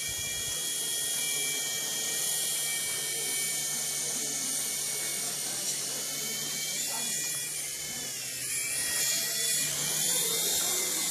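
Toy RC helicopter's small electric motors and rotors whirring in flight, a steady high whine whose pitch wavers slightly as the throttle shifts.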